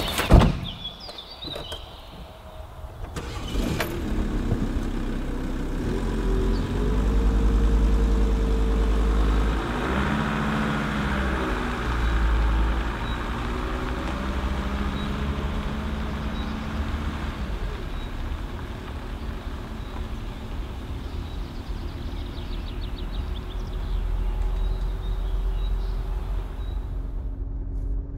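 A van door slams shut, then a Volkswagen Transporter T4 van's engine starts and the van pulls away, engine pitch rising and falling with the gear changes as it drives off and slowly fades.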